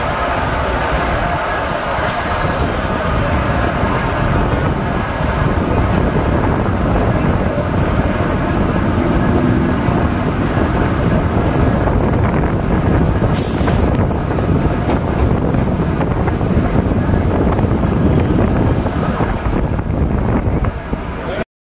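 Kolkata suburban EMU local train running past close by: a steady, loud rumble of its wheels on the rails. It cuts off suddenly near the end.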